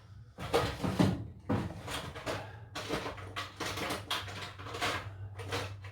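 Rummaging through tools for a screwdriver: a string of irregular clattering knocks as tools are moved about and picked up.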